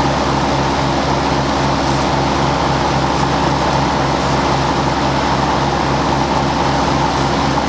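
Front-deck ride-on mower's engine running steadily with the cutting blades spinning, while a garden hose feeds water into the deck's washing port to clean the underside of the deck.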